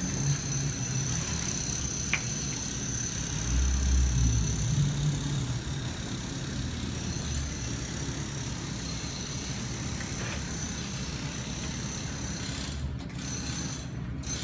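Small boat's motor running slowly at low throttle, a steady low hum with a thin high whine above it, swelling a little about four seconds in.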